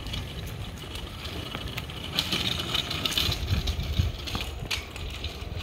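Small wheels rolling over an asphalt road: a steady low rumble with scattered light clicks and rattles.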